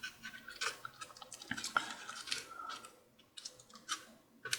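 Scattered light clicks, taps and rustles of small cables and plastic parts being handled inside an opened laptop.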